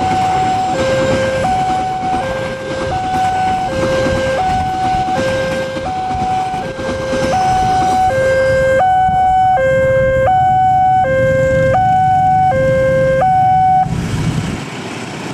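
Railway level-crossing warning alarm sounding a two-tone electronic signal, a high and a low note taking turns about every three-quarters of a second, over the rumble of a passing passenger train at first. The alarm stops near the end as the barrier lifts, the train having cleared the crossing.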